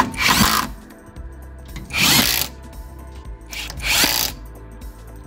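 Cordless power driver with a socket running in three short bursts about two seconds apart, spinning wheel bolts into a car's wheel hub.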